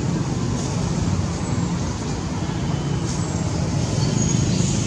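Steady low rumble of motor traffic, with a faint high tone near the end.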